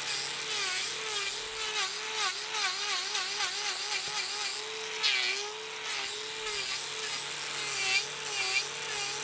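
Angle grinder with a trimming disc grinding horn from a bull's hoof, removing loose horn around a crack in the outer wall. The motor's whine dips and recovers again and again as the disc bites into the hoof, over a steady gritty rasp.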